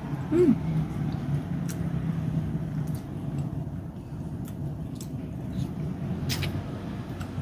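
A person eating a salmon and avocado salad: a short hummed 'mm' about half a second in, then a few faint clicks of chewing and the fork, over a steady low background hum.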